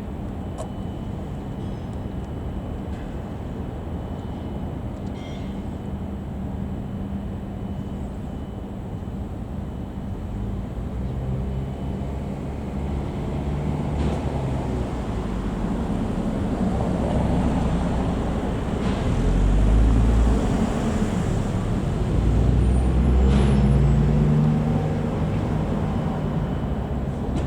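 JR DE10 diesel-hydraulic locomotive's engine running with a steady low hum, growing louder from about a third of the way in, with two heavy low rumbles in the second half.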